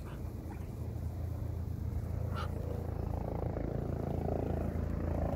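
Steady low rumble, like passing traffic or wind, growing slightly louder, with one short high peep from a mallard duckling about two and a half seconds in.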